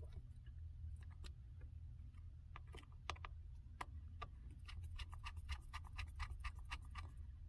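Light, irregular clicks and taps of a small hand tool on the MacBook Pro's internal parts and connectors, coming faster in the second half, over a low steady hum.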